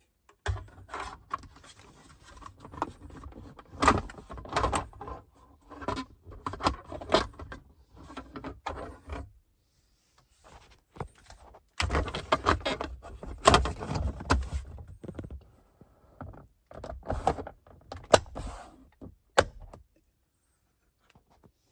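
Plastic interior trim cover being handled and pressed back into place, a run of rattles, knocks and snapping clicks in two busy stretches with a short pause between.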